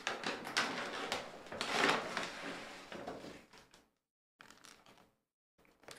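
Paper grocery bag rustling and crinkling as a hand rummages through it and lifts an item out, loudest about two seconds in, then fading to a few faint rustles.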